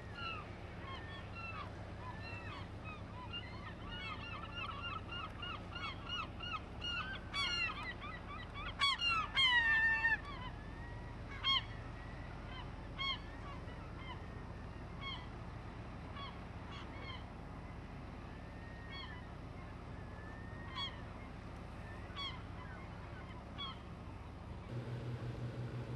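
A flock of birds calling: a dense run of rapid, repeated calls about a third of the way in, then scattered single calls, over a steady low engine hum. Near the end a louder engine starts running.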